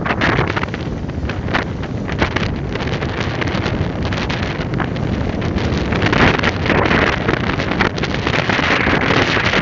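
Strong wind buffeting the microphone, with water rushing and splashing along the hull of a heeled sailing yacht beating close-hauled to windward. The splashing grows somewhat stronger past the middle.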